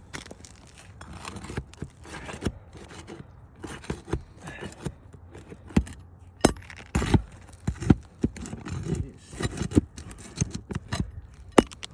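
Irregular sharp clicks, knocks and scrapes of hand work on roof shingles, the knocks coming thicker and louder in the second half.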